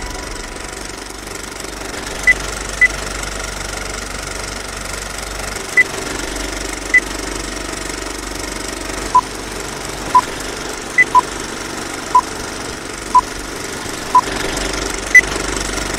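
A steady mechanical running noise with a dozen short electronic beeps over it. Higher beeps come at scattered intervals, and six lower beeps come about once a second in the second half.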